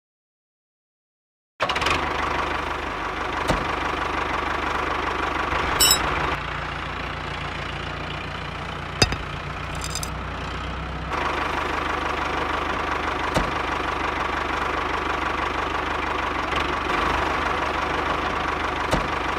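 Miniature model water-pump engine running steadily: a mechanical hum with an even low beat. It starts suddenly about a second and a half in, with a few sharp clicks along the way.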